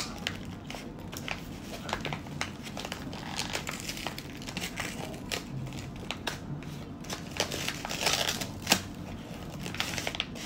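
A thin plastic grocery bag crinkling and rustling in irregular crackles as groceries, including a bag of sugar, are handled and lifted out, with a busier stretch about eight seconds in.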